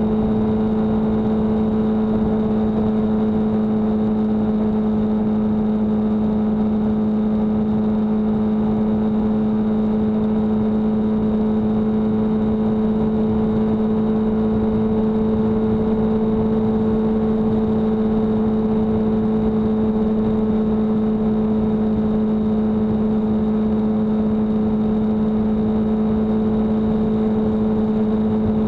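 Car cruising on a motorway at about 73 mph, heard from on board: a steady humming drone over constant road and tyre noise. The drone's pitch edges up slightly midway as the speed rises a little.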